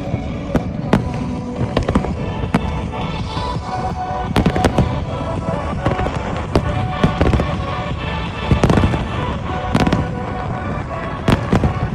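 A fireworks display with many sharp bangs and crackling pops coming irregularly, several clusters of them, over music that plays throughout.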